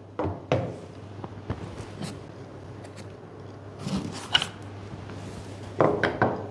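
Carbon-fibre detector enhancer tubes being handled and set down on a wooden desk: scattered light knocks and clicks, with a cluster of louder knocks about six seconds in. A low steady hum runs underneath.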